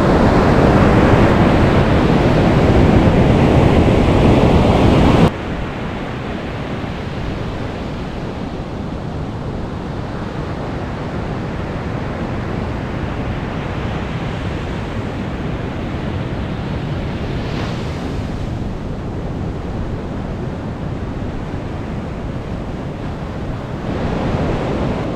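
Sea surf breaking on a beach, with wind on the microphone. Loud for about the first five seconds, then it drops suddenly to a quieter, steady wash of waves.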